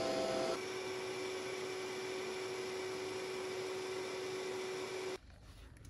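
Vitamix A2500i blender motor running steadily with a constant whine, blending vegan mayonnaise in its small blending cup. The sound drops a little in level about half a second in and cuts off abruptly about five seconds in.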